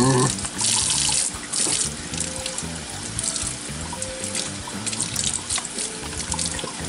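Water running, as from a tap into a sink, over quiet background music with a low bass line.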